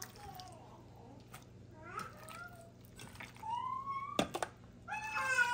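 Raw chicken pieces being handled and dropped into stainless steel dog bowls: soft wet squelching with a metal clink about four seconds in. Near the end a long, high, wavering whine begins.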